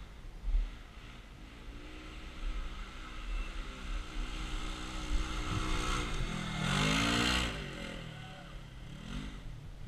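Side-by-side UTV engine revving up and down, with the loudest rev about seven seconds in and a shorter one near the end.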